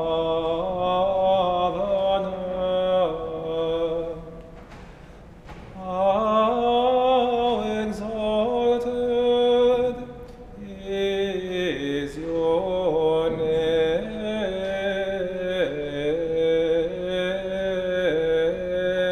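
A singing voice chanting slowly in long held phrases, with breaks about four and ten seconds in.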